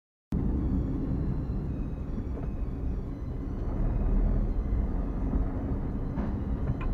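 Low engine and road rumble of a car driving in traffic, heard through a dash cam mounted inside the car; it cuts in suddenly after a moment of silence.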